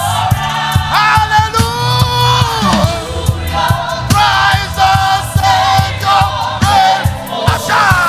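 Gospel choir singing with a live band, drums keeping a steady beat under a low bass line.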